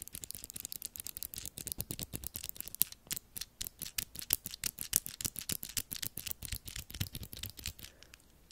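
Fast, uneven run of crisp clicks, about ten a second, from small ridged metal light-wand handles worked close to the microphone; they stop near the end.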